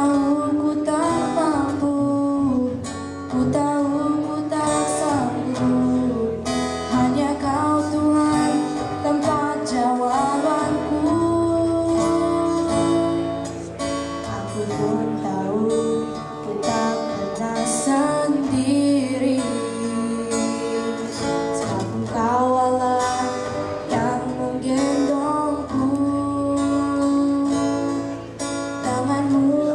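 A girl singing a song through a microphone, accompanied by acoustic guitar.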